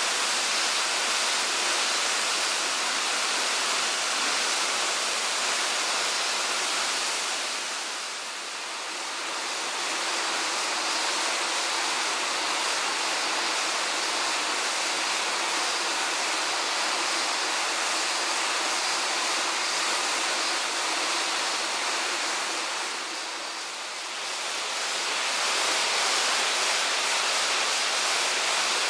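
Tanashita Fudō Falls, the male falls (Odaki), pouring steadily into its plunge pool as an even rushing roar, with two brief dips in level, about a third of the way in and again near the end.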